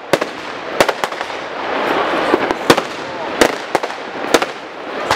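Fireworks shells bursting overhead: about six sharp bangs at irregular intervals, with a steady noisy crackle between them.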